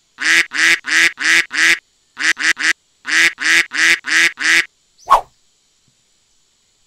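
Duck quacking sound effect: about fourteen short, identical nasal quacks in three quick runs (five, then three, then six), with dead silence between them. About five seconds in comes one brief, different squeak.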